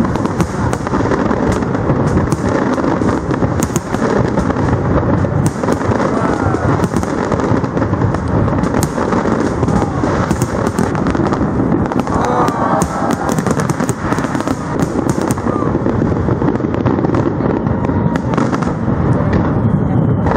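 Aerial fireworks bursting in a dense, continuous barrage: steady low booming with many sharp cracks and pops on top.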